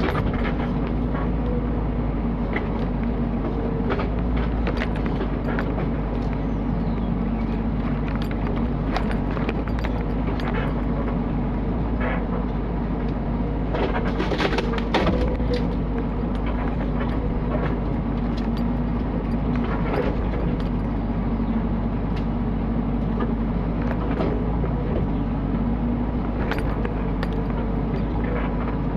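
Mini excavator engine running steadily, with scattered clanks and knocks from the machine at work, a cluster of them about halfway through.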